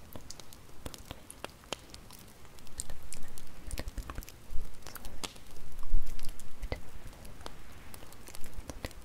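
Campfire crackling: irregular sharp pops and snaps of burning wood over a low hiss, with a few low swells in between.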